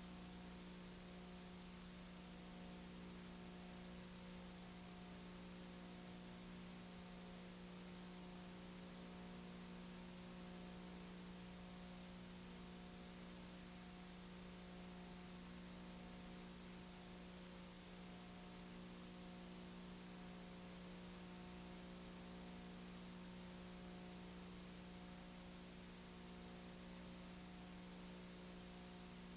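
Faint steady electrical hum with hiss, unchanging throughout; no game or crowd sound.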